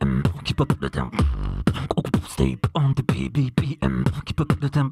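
Solo human beatboxing through a microphone and PA: quick mouth-made kick, snare and hi-hat hits mixed with short pitched vocal tones, with a held low bass note a little over a second in.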